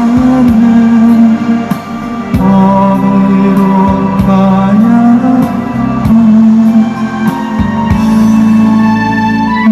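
Live music: a slow song with a melody carried on long held notes over accompaniment.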